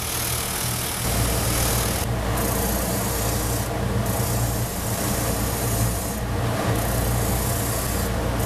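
A disc sander running with an MDF disc held against it; about a second in this gives way to a spindle sander running as the inside of an MDF ring is sanded against its drum. The grinding hiss of the sanding drops away briefly four times as the work moves off the drum.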